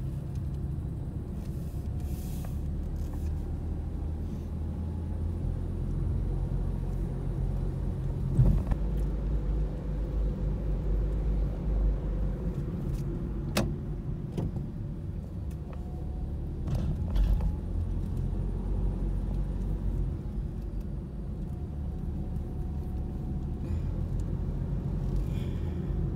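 Car driving, heard from inside the cabin: a steady low rumble of engine and road noise, with a couple of short sharp clicks midway.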